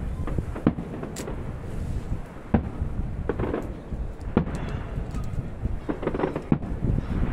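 Aerial firework shells bursting: a string of sharp bangs at irregular intervals, each about a second or so apart, over a steady low rumble.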